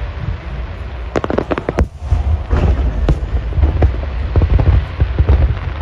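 Fireworks going off: repeated deep booms over a constant low rumble, with sharp crackling bursts from about a second in.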